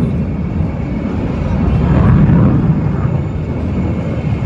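Fighter jet flying a display, its engine noise heard as a loud rumble that swells about two seconds in and then slowly fades.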